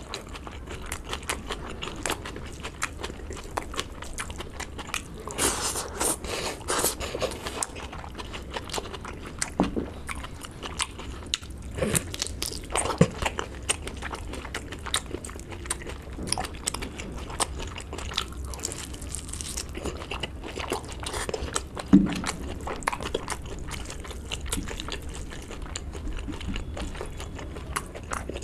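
Close-miked chewing and biting of a person eating a pork curry and rice meal by hand: a steady run of irregular wet mouth clicks, with one louder crunch about three-quarters of the way through.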